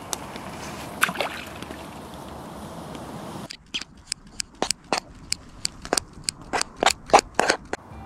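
Steady background hiss, then, after an abrupt change about three and a half seconds in, a wood campfire crackling with sharp irregular pops that grow louder near the end.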